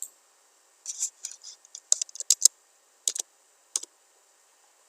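Computer keyboard and mouse clicking in irregular taps, with a quick run of several around two seconds in, then two single clicks.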